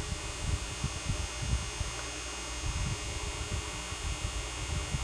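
Steady background room noise: a constant hiss with an uneven low rumble.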